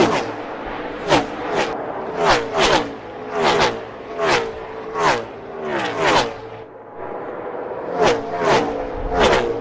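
Gen 6 NASCAR stock cars' V8 engines at full race speed passing close by one after another, about a dozen in quick succession, each a sharp whoosh whose engine pitch drops steeply as it goes by. A brief lull comes about two-thirds of the way through before the next cars arrive.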